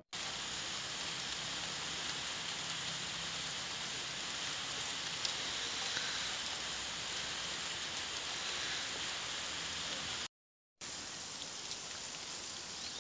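Steady rain, an even hiss with a few faint drip ticks; it drops out completely for about half a second near the end.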